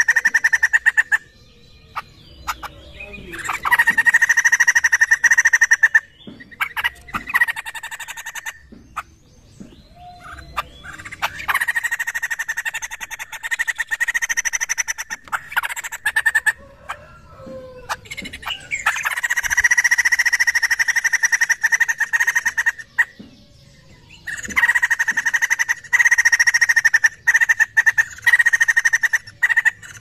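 Poksay jambul (white-crested laughingthrush) giving loud, rapid chattering calls in repeated bouts of two to five seconds, separated by short pauses.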